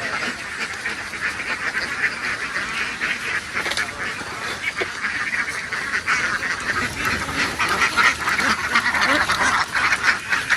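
A large flock of domestic ducks quacking, many calls overlapping without a break and growing louder in the second half.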